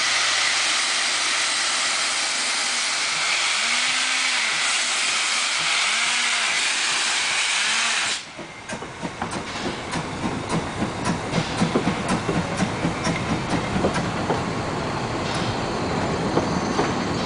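Narrow-gauge steam locomotive pulling away with a loud, steady hiss of escaping steam that cuts off suddenly about eight seconds in. After that come its rhythmic exhaust chuffs, with the rumble and clatter of the running gear and coaches on the rails.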